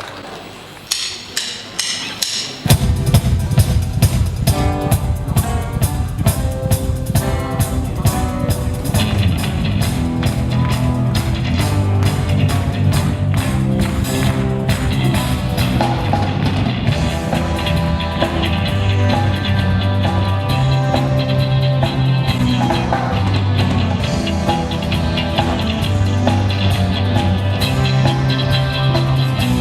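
Rock band playing an instrumental intro with a drum kit up front. A few separate drum hits come first, then the full band with a steady beat and a low bass line comes in about three seconds in.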